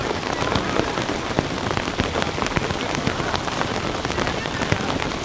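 Steady rain falling, with many separate drops striking a surface close by as a dense run of sharp ticks over a constant hiss.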